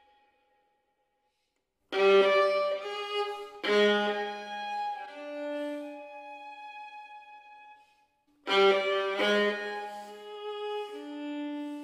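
Solo violin, silent for about two seconds, then two sudden loud chords a little under two seconds apart, each sinking into softer held notes. After a short pause, another pair of loud chords, the last settling into a quiet sustained note.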